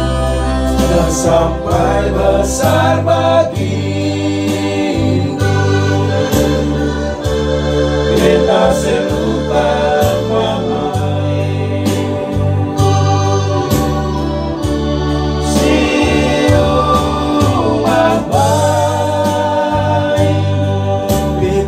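A male vocal group singing together into microphones, accompanied by an electronic keyboard playing organ-like chords over a steady bass line.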